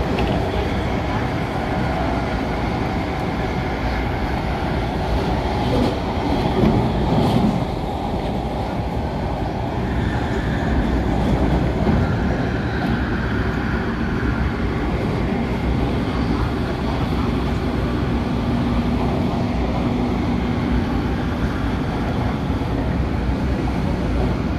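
MTR A-train running at speed, heard from inside the passenger car: a steady rumble of wheels on the track, with a low steady hum that comes in for a few seconds past the middle.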